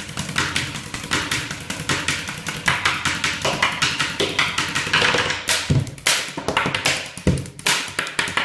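Pens tapped out as a percussion beat: a fast, rhythmic run of sharp clicks and taps, with a few deeper thumps in the second half.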